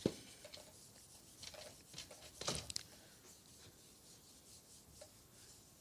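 Quiet room tone broken by a sharp knock right at the start and a few faint rustles and scuffs, the loudest about two and a half seconds in.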